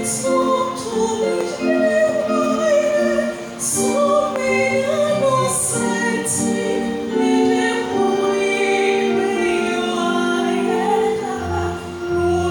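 Church choir singing together in several-part harmony, with sustained sung notes and a few sharp sibilant consonants.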